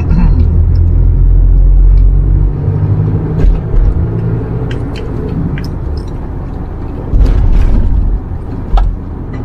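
Car driving, heard from inside the cabin: a steady low engine and road rumble that eases off a few seconds in and swells again near the end.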